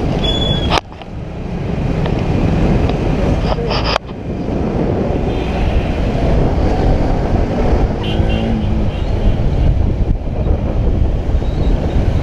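Wind rushing over the camera microphone on a moving Bajaj Pulsar 200NS motorcycle, with the bike's engine and the surrounding traffic beneath it. The noise drops sharply for a moment twice, about a second in and at four seconds.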